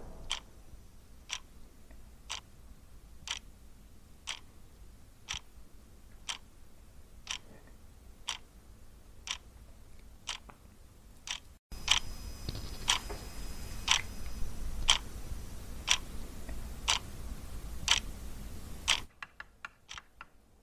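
Clock ticking steadily about once a second; about halfway through, a low room rumble comes in underneath. Near the end the ticking gives way to a quick run of light taps of chalk on a blackboard.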